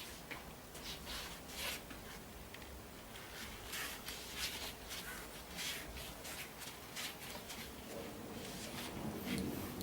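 Irregular short rustling and scratching strokes, like something being handled and rubbed, a dozen or so spread unevenly through the stretch.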